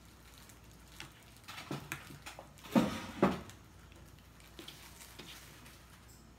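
Cotton fabric pieces being handled and gathered up on a cutting mat: a few short rustles and light knocks, the loudest two close together about three seconds in.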